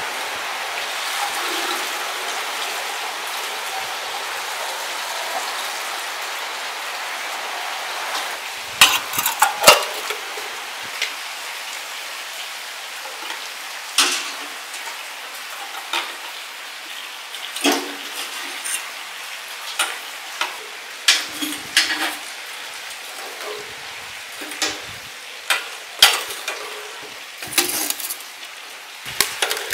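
Metal tongs clinking against a charcoal burner and the hot coals inside it, sharp clicks at irregular intervals, with the loudest pair about nine seconds in, over a steady hiss.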